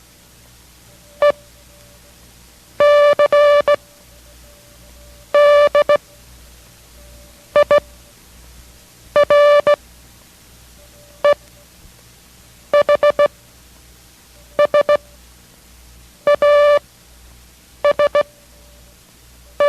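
Morse code sent as a steady buzzy tone, one character at a time with long gaps between: E, C, D, I, R, E, H, S, A, S, the repeat of a code practice group, with C starting right at the end.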